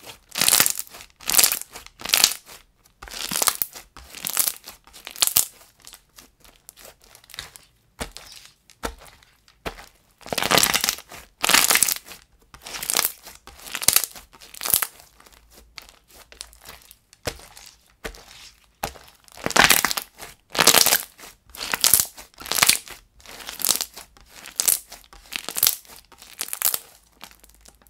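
White fluffy slime with small beads mixed in, squeezed, folded and pressed by hand, giving short noisy squishing bursts about once a second, some much louder than others.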